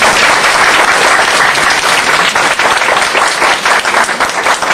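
An audience applauding, many hands clapping in a dense, steady stream.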